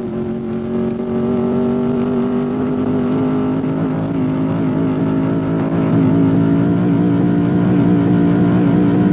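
Scarab race car's 350 Chevrolet V8 running under load, its pitch climbing slowly and steadily as the car accelerates in one gear.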